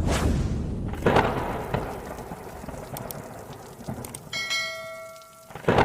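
Intro sound effects: a rumbling, rain-like noise with several sharp hits, and a bell-like chime ringing for about a second, starting about four seconds in.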